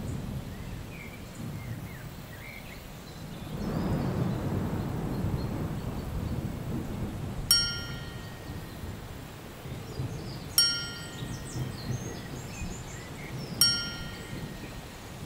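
A bright chime sound effect dings three times, about three seconds apart, from halfway through, each ring fading quickly; it marks each check mark as it appears. Beneath it runs a low rumbling ambience that swells about four seconds in.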